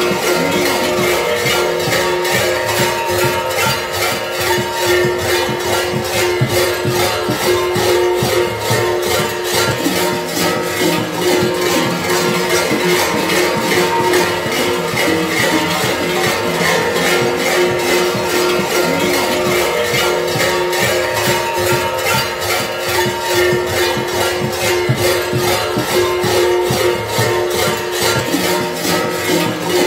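Many large kukeri bells (hlopki), worn on the belts of costumed kukeri, clanging together in a steady, fast rhythm of several strokes a second, with their ringing tones held beneath.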